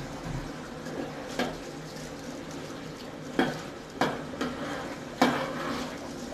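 Sliced tomatoes and onions frying in hot oil in a stainless steel pot, sizzling steadily, while a metal slotted spatula stirs them and knocks and scrapes against the pot several times, the sharpest clinks in the second half.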